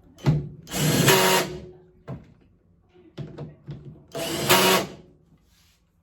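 Power drill driving in the tail wheel's mounting bolts, in two short runs of about a second each, with a few knocks of handling between them.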